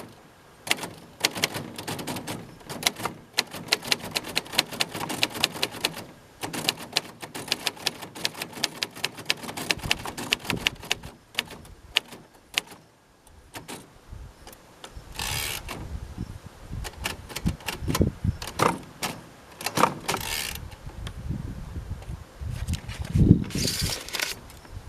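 Typing on a 1948 Royal Quiet De Luxe portable typewriter: rapid key and type-bar strikes, several a second, for about the first twelve seconds. The typing then stops, followed by handling noises: a few short swishes and low knocks.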